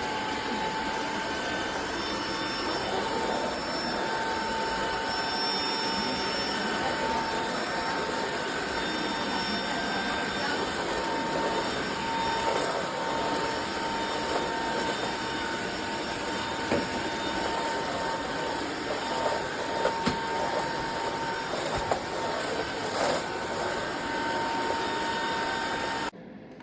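Eureka RapidClean Pro cordless stick vacuum running steadily, a level high motor whine over the rush of air, with occasional light clicks and knocks. The sound stops suddenly near the end.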